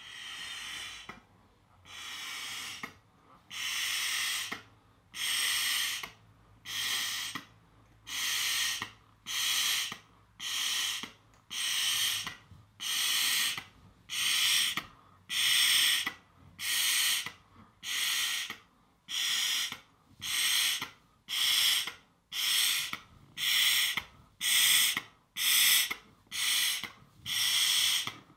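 A 24-inch balloon being blown up by mouth: a long run of hard breaths pushed into it, about one a second after two slower first puffs, with short quiet gaps for each inhale, and the puffs getting louder as it goes.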